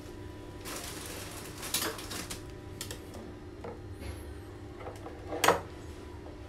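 Steel pliers and other metal hand tools clinking and knocking together on a table as they are handled: a few light clicks, then a sharper clank about five and a half seconds in.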